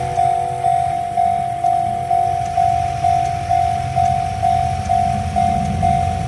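Railway level crossing warning bell ringing steadily, a single tone struck about twice a second, over a low rumble.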